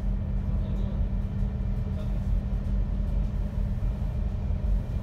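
Inside a MAN Lion's City articulated city bus while it drives: a steady low rumble of engine and road noise with a constant low hum.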